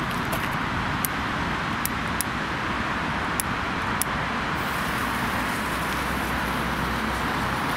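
Category-1 spinning disc firework burning with a steady, loud hiss, with a few sharp cracks in the first four seconds and the hiss turning brighter about halfway through. It was lit without being spun by hand, so it struggles to lift off.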